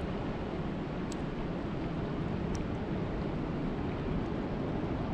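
Steady rain falling on a lake's surface, an even rushing hiss with a couple of brief high drop ticks.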